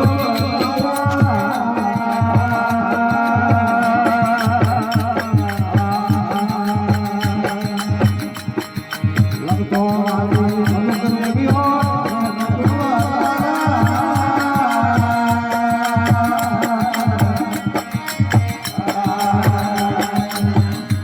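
Rajasthani desi bhajan, a devotional folk song: a sustained, wavering melody over a steady drum beat.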